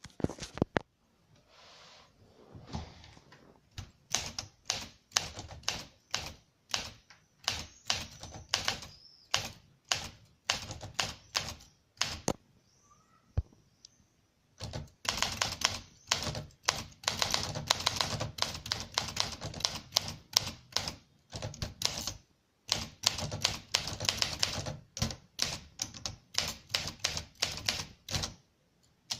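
1964 Olympia SM9 manual typewriter being typed on: a run of sharp typebar strikes against the platen. The strikes are sparse at first, then come fast and dense from about halfway through.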